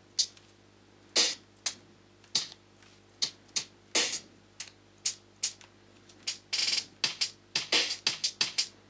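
Drum-machine hi-hat and percussion samples playing back from a tracker pattern: short, bright, irregularly spaced hits, with one longer hissing hit about two-thirds of the way through.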